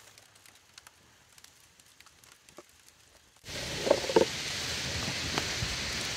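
Campfire crackling: faint scattered pops at first, then suddenly much louder a little over three seconds in, a steady hiss with sharp crackles and pops on top.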